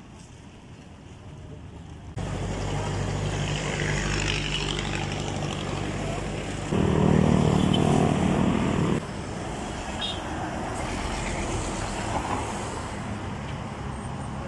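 A motor vehicle engine running with a steady low hum. It comes in abruptly about two seconds in and is louder for a couple of seconds in the middle.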